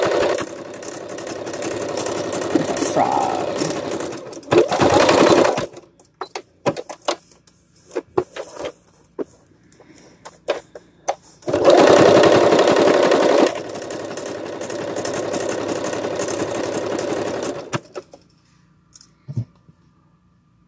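Electric sewing machine stitching a seam through upholstery fabric in two runs of several seconds each, with a pause of a few light clicks and fabric handling between them; the second run starts fast and then settles to a slower, quieter stitch before stopping near the end.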